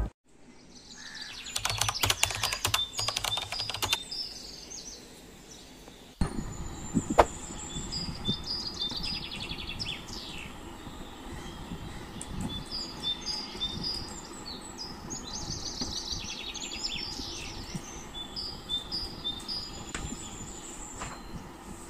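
Small birds chirping and twittering repeatedly over a steady ambient background. A run of rapid clicks comes in the first four seconds, and a single sharp tap about seven seconds in.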